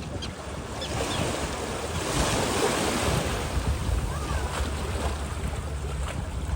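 Surf washing onto the beach, building up after about a second, with wind buffeting the microphone. A couple of faint, short, high bird calls come in the first second.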